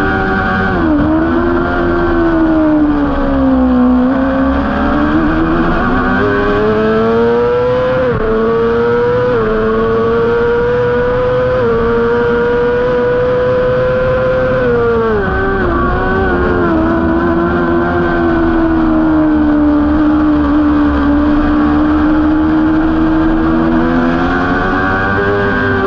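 Honda CBR600RR inline-four sport bike engine at race pace, heard from onboard. The revs fall about a second in, climb again with a couple of quick upshifts around eight to nine seconds in, and hold high on the straight. About fifteen seconds in they drop sharply under braking and downshifts, hold steady at mid revs, and start climbing again near the end.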